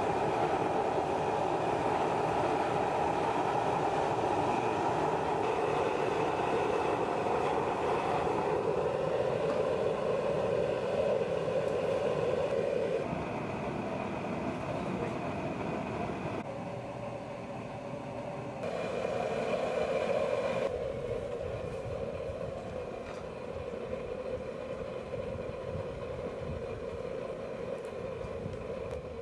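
Homemade waste-oil burner stove burning with a steady rushing noise of flame and forced air. The level drops and shifts abruptly several times from about halfway through.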